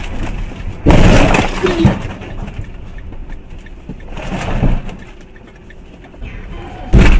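Car crash: a sudden loud impact with a breaking, crunching noise about a second in. Another short, loud bang comes near the end.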